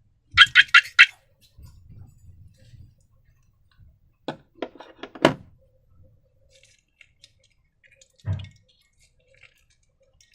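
Handling noises: four quick sharp snaps in a row, then a few scattered clicks and one dull thump.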